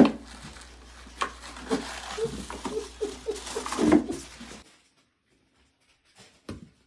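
A cat scrabbling and bumping about inside a plastic wastebasket: a loud knock at the start, then rustling and light knocks, cutting off suddenly about four and a half seconds in.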